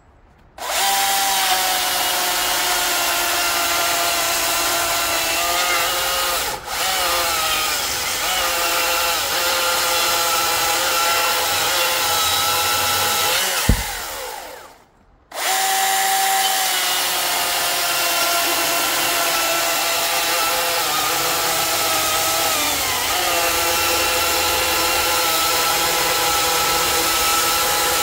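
Ego CSX5000 battery-powered chainsaw cutting through a large hardwood log under load: a steady electric motor whine with chain rasp, its pitch sagging slightly as the saw is leaned on. About halfway a sharp thump, the saw stops briefly, then a second cut starts and runs on.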